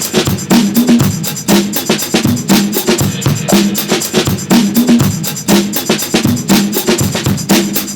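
Upbeat background music with a fast, steady drum beat and a repeating bass line.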